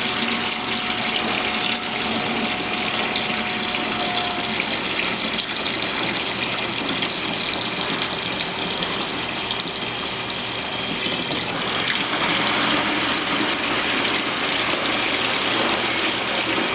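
Hot water pouring steadily from a hose into a plastic mop bucket, filling it.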